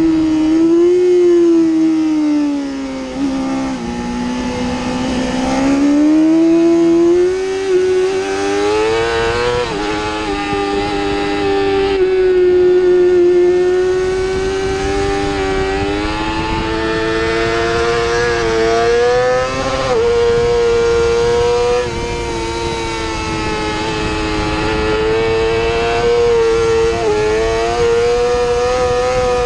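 A 2017 Yamaha YZF-R6's 599 cc inline-four engine at racing revs, heard from on board. Its pitch climbs under acceleration, drops abruptly at each upshift, and sags briefly as the bike slows for corners.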